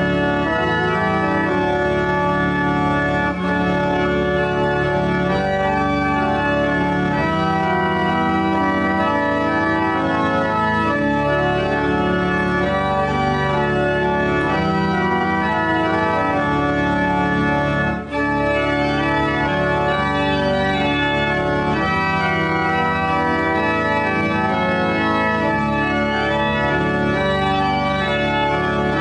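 Church organ playing held chords that change from one to the next, with a brief break about 18 seconds in.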